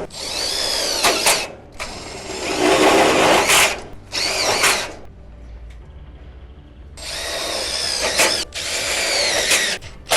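Cordless drill driving screws into the steel shed frame in about five short runs, its motor whine swooping in pitch within each run, with a pause of about two seconds near the middle.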